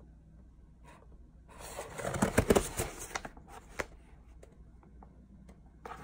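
Cardboard snack box and its paper insert being handled: a stretch of rustling and crinkling with small clicks, loudest about two seconds in, then a few light taps and more rustling near the end.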